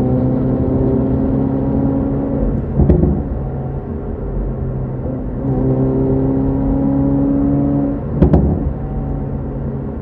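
Hyundai Veloster N's turbocharged four-cylinder engine revving hard under acceleration, heard from inside the cabin, its note climbing steadily. Twice, about 3 s and 8 s in, the revs drop at an upshift with a sharp crack, and the note starts climbing again.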